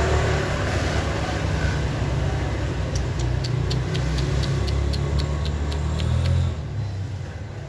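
A motor vehicle engine running with a low rumble. About three seconds in, a rapid regular ticking joins it, about four ticks a second, and both stop together near the end.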